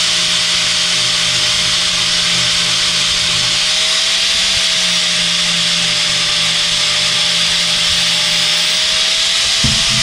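DeWalt angle grinder with a flap disc running steadily under load, grinding down the back of a Coyote throttle-by-wire pedal: a loud, even grinding hiss with a steady motor whine.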